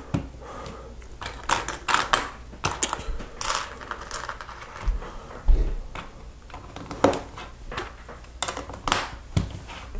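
Small plastic LEGO pieces clicking and clattering in an irregular string as they are picked from a loose pile and pressed onto a plate, with a soft low bump about halfway through.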